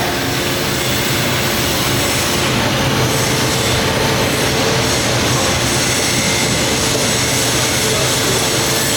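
A 16A20F3 lathe running steadily: an even mechanical hum with a low steady tone and a fainter higher one.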